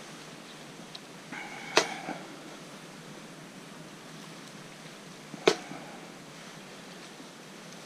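Two sharp metallic knocks of camp cookware, a few seconds apart; the first rings briefly with a clear metal tone. A steady hiss continues underneath.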